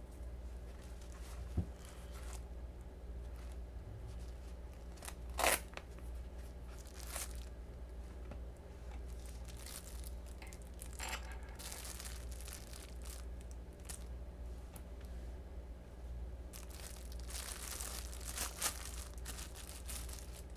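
Knife packaging being opened by hand: intermittent tearing and crinkling rustles with a few sharp clicks, the loudest about five seconds in and a busier run of rustling near the end, over a steady low hum.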